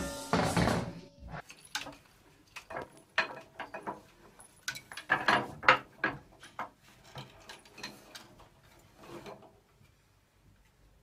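Scattered, irregular knocks and clatter of a rope ladder's wooden rungs as a cat climbs it, with a few louder knocks among them, dying away near the end.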